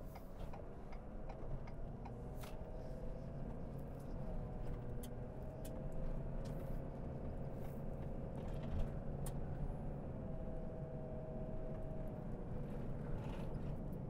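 Pickup truck driving on a gravel road, heard from inside the cab: a steady low road and engine rumble with a faint whine that drifts slightly in pitch, and scattered light ticks.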